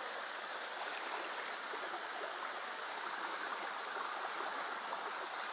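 Shallow mountain stream running over a rocky bed, a steady, even rush of water.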